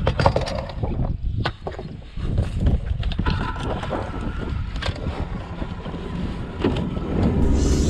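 Sharp knocks and clunks as the bow trolling motor of a bass boat is stowed, then the outboard motor running steadily from about three seconds in, louder near the end, with wind buffeting the microphone.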